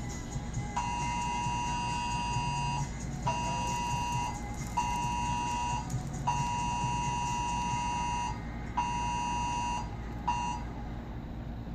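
Electronic beeper sounding a steady high tone in six beeps of uneven length, the longest about two seconds and the last very short.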